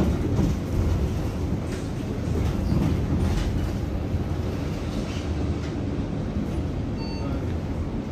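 Interior rumble of a city bus: a steady low drone from the engine and running gear, with faint rattles and knocks. About seven seconds in comes a short electronic beep.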